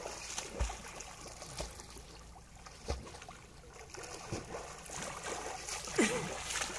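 A swimmer's strokes splashing and sloshing through calm river water, with a couple of dull low thumps.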